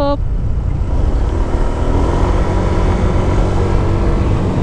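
Honda Click 125 scooter's engine running at a steady pace while riding, a constant low drone under wind rush on the microphone.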